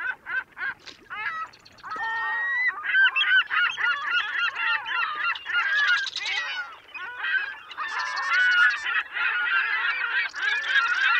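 A flock of birds calling, many short calls overlapping. The calls are sparse at first and become a dense, louder chorus from about two seconds in.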